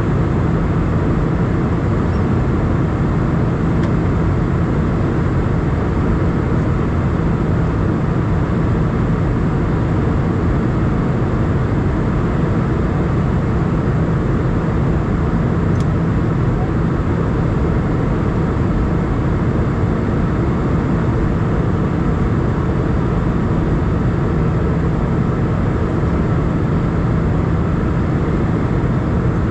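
Steady cabin noise inside an Airbus A320 in flight: the jet engines and rushing airflow make a deep, even rumble that does not change.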